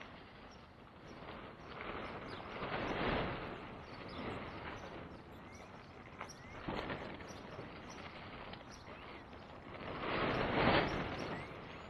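Heavy fabric light-deprivation cover rustling and dragging as it is hauled back over a hoop greenhouse, in several swells of rushing noise, loudest about three seconds in and again near the end.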